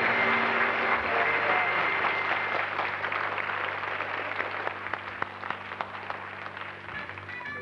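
Studio audience applauding, slowly dying away. Plucked string music comes in near the end.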